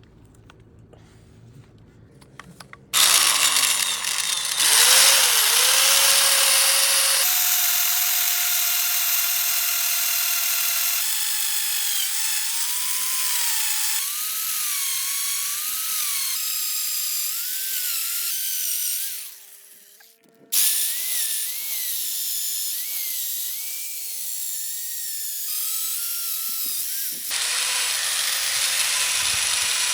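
Power drill boring holes into a wooden tree stump, its motor whining with a pitch that rises and falls as the bit loads up in the wood. It starts about three seconds in, stops briefly about two-thirds of the way through, then starts again.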